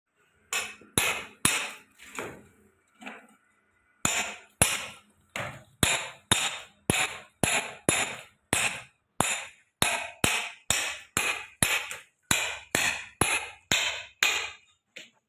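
Hammer blows on a masonry wall, chipping it open for concealed pipe and wiring. The blows come sharp and regular, about two a second, with a short break a couple of seconds in.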